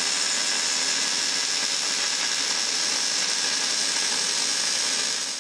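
Jefferson 180 amp MIG welder arc welding steel plate, a steady, dense sizzling hiss that fades away near the end.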